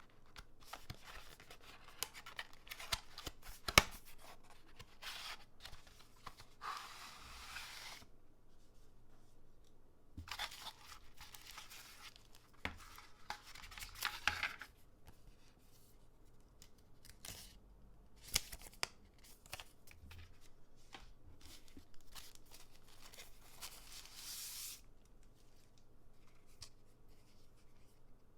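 Hands opening packaging: paper or plastic wrapping tearing and rustling in four bursts, with sharp taps and clicks, the loudest about four seconds in.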